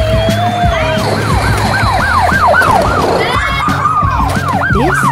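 Sirens sounding together: one sweeps rapidly up and down, about two or three times a second, over another steadier wavering siren tone.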